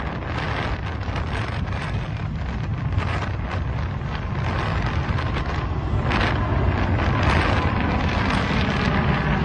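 Wind buffeting a phone microphone: a rough, steady rush with a heavy low rumble that grows a little louder toward the end.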